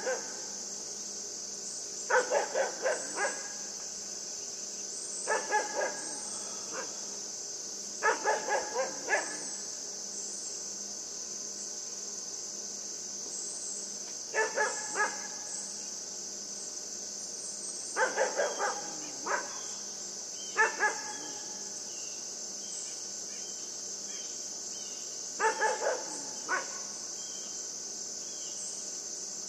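A Great Pyrenees–Siberian husky mix puppy barking at a buck, in about seven short bursts of three to five quick barks, several seconds apart. A steady chorus of insects runs underneath.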